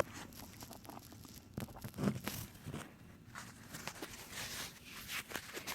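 Light scattered clicks and rattles of metal parts being worked by hand in a car's steering column, around the ignition lock and sector gear.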